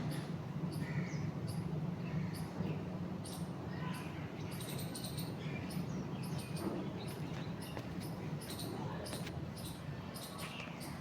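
Steady low rush of a flooded river, with many short high-pitched chirps repeating over it.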